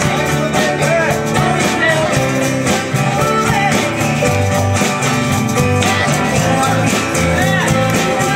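Live band playing a song: acoustic guitar, electric bass, drums and keyboard, with women singing into microphones over a steady drum beat.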